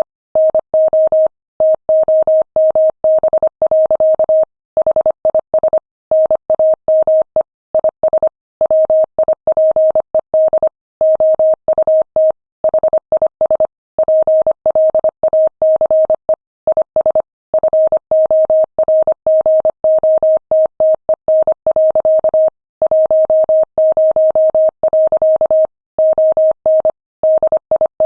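Morse code at 25 words per minute: a single steady mid-pitched tone keyed on and off in quick dots and dashes, with longer pauses between words.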